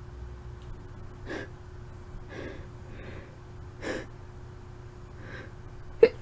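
A woman's short sniffs and breaths between dust-induced sneezes, with a quick, sharp gasp near the end as the next sneeze builds.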